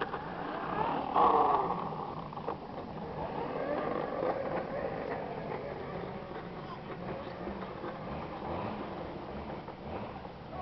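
Young children babbling and vocalizing during outdoor play over a steady background haze, with one short loud cry or shout about a second in.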